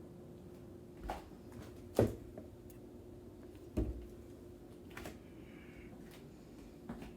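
A handful of sharp, scattered thumps and knocks, about five in all with the loudest about two seconds in, over a steady low hum in a small room.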